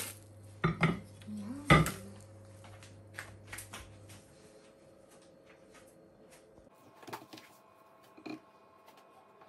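Plastic ice cream tub knocked down onto a ceramic plate twice in the first two seconds, followed by light clicks and the rustle of cling film. Near the end, a few faint clicks of a metal ice cream scoop digging into the frozen ice cream.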